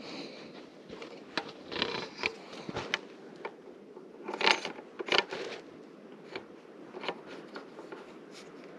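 A hunter handling gear at a tree: clothing rustling, with scattered clicks, scrapes and knocks of metal gear and straps, the two loudest about halfway through.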